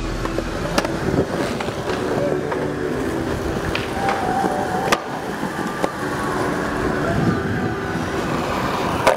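Skateboard on concrete: wheels rolling with several sharp snaps and landings of the board, over city traffic noise.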